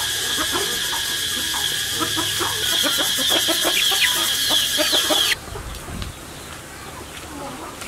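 Chickens clucking over a loud, steady high-pitched drone. The drone cuts off suddenly about five seconds in, leaving quieter clucking and a dull thump.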